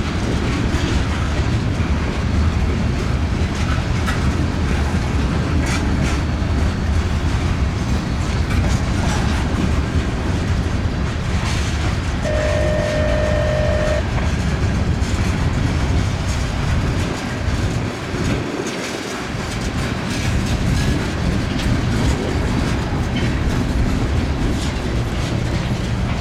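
CSX freight train cars rolling past at a grade crossing: a steady low rumble with wheels clacking over the rail joints. A short steady tone sounds briefly about halfway through.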